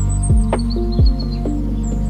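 Relaxing background music with held notes and two deep bass hits that slide down in pitch, with high bird chirps mixed in faintly over it.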